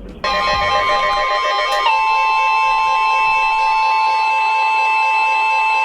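Emergency alert attention tone: electronic tones start abruptly, then about two seconds in settle into a loud, steady two-tone signal that holds unchanged.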